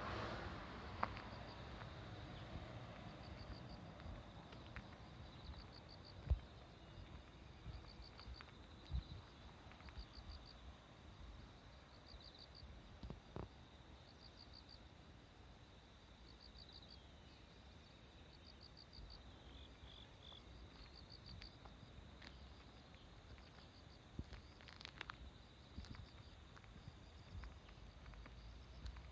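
Insects chirping in short rhythmic trains that repeat about every second and a half, over a faster, very high-pitched continuous pulsing. A few faint knocks come and go.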